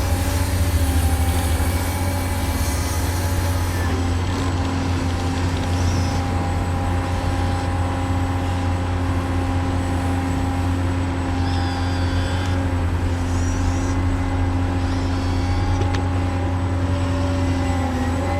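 Radio-controlled truck's motor running steadily: a low drone with a constant whine.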